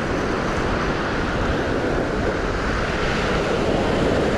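Surf breaking and washing onto a sandy beach, a steady rush of water, with wind buffeting the microphone.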